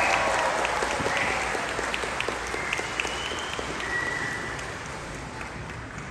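Audience applauding, the clapping gradually dying down over the few seconds.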